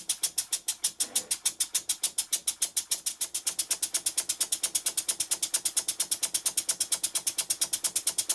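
Bar-stock model steam engine running fast on compressed air, giving an even train of sharp exhaust puffs at about seven to eight a second over a faint steady hum. It exhausts at the end of each stroke, which the owner puts down to the geometry of the slide valve over the ports.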